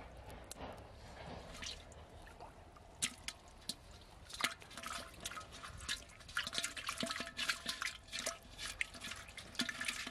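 Live fish flapping and splashing in a little water inside an aluminium pot. Wet slaps and splashes come a few at a time at first, then turn rapid and almost continuous about halfway through.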